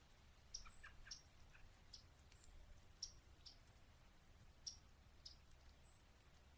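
Yellow-rumped warblers giving faint, sharp chip notes, about a dozen scattered irregularly, with a few softer, lower bird notes in the first second and a half.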